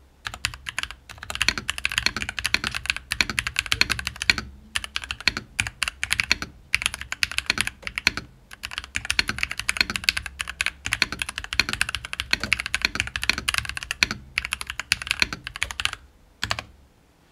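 Typing on a stock Nuphy Halo65 65% mechanical keyboard with Gateron G Pro 2.0 Brown tactile switches and double-shot PBT keycaps. Fast, continuous key clacks with a few brief pauses, stopping shortly before the end.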